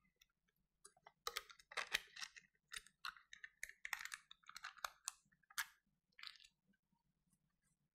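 A small pot of yogurt being scraped out into a blender jar: a loose string of short, faint scrapes and clicks.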